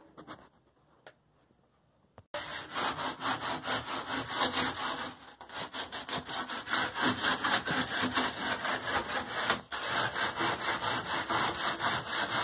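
Sandpaper rubbed by hand over a painted ceiling in rapid back-and-forth strokes. It starts suddenly after about two seconds of quiet, with a short break about three-quarters of the way in.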